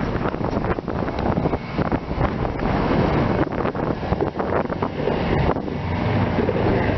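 Strong, gusty wind buffeting the microphone: a loud rushing roar with uneven blasts.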